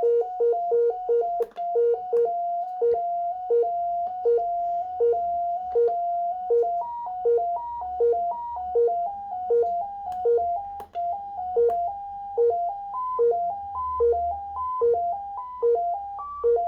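Breadboard synthesizer sequencer playing a repeating pattern of electronic beeps, a low note alternating with higher ones. The pattern slows for a few seconds and then picks up again, and the upper notes step higher near the end as speed and pitch are adjusted. The pitches jump between a few fixed steps with odd harmonics, so the tune is not very tuneful.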